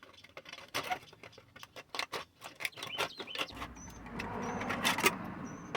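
Handling noises from a disposable plate being fitted over plastic trim: a run of light clicks and taps, with a denser rustling from about three and a half seconds in. A few short, high bird chirps sound in the background.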